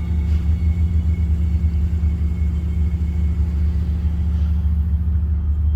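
Steady, loud low rumbling drone of unknown origin, like distant trains on a track. It holds at an even level with a deep hum underneath.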